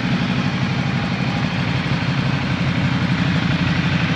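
Ducati Multistrada 1200 S's 1,198 cc L-twin engine idling steadily through an Akrapovič slip-on exhaust, a rapid, even low pulse.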